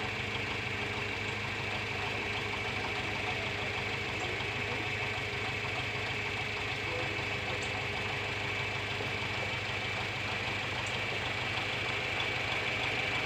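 Tractor engine idling steadily while it powers the lift raising a tractor cab.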